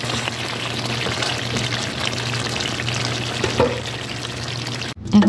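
Chicken and potato curry frying in its own juices in a pot, stirred with a spatula; the sound cuts off abruptly near the end.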